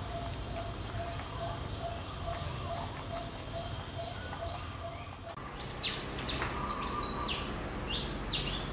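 Small birds chirping in repeated short calls over a steady low background hum; about five seconds in the background changes and sharper, quickly falling chirps come about twice a second.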